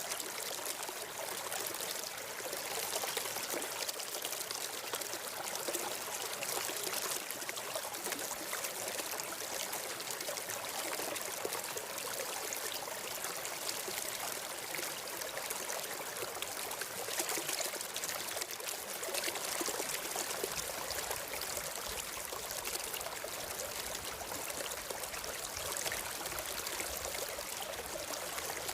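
Stream water flowing steadily, a continuous even rush and trickle with no break or change.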